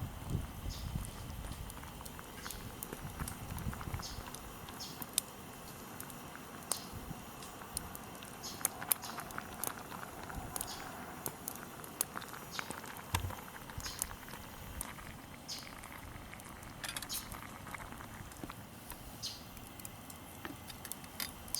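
Small wood fire crackling, with irregular sharp pops and ticks over a faint steady hiss, as a can of beans heats over it.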